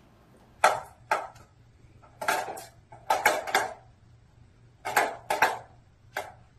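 A small dish clattering on a hard floor as a cat knocks it about: irregular sharp clinks and rattles, some coming in quick runs of two or three, spread over several seconds.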